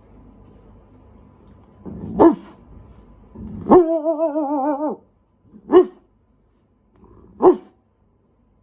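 A person imitating a dog with the voice: one short bark, then a wavering, drawn-out whine of about a second, then two more short barks a couple of seconds apart.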